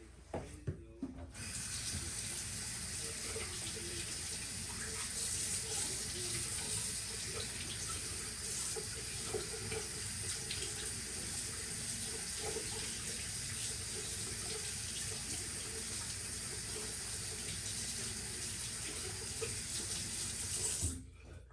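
Tap water running into a sink to rinse out a washing machine's clogged drain filter. It is turned on about a second in and shut off just before the end.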